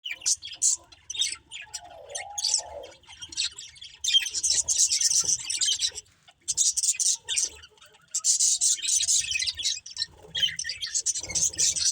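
Budgerigars chirping and chattering: rapid high chirps in dense runs, with a short lull about six seconds in.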